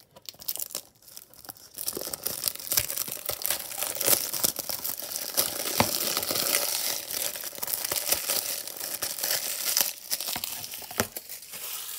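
Clear plastic shrink wrap crinkling and tearing as it is peeled off a plastic Blu-ray case, a dense crackle of many small clicks. It starts in earnest about two seconds in and dies down near the end.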